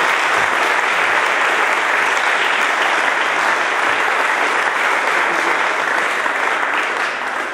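Audience applauding, a dense steady clapping that begins to ease just at the end.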